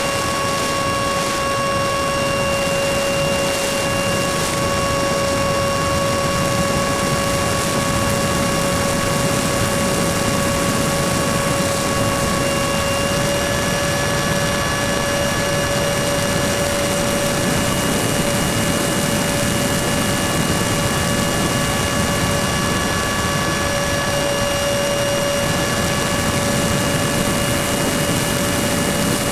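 Electric ducted-fan motor of an E-flite Habu radio-controlled jet in flight, heard from a camera on board: a steady high whine over rushing wind, stepping slightly in pitch about halfway through.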